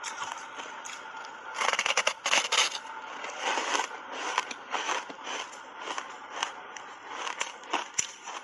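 Close-miked crunching of ice coated in thick matcha powder: a loud bite into the ice block about two seconds in, then an irregular run of crunching chews.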